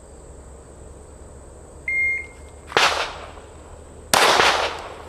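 A shot timer beeps once, a steady high tone. About a second later the 9mm Glock 43 pistol fires, a sharp crack that rings out, and a second loud report follows about a second and a half after that.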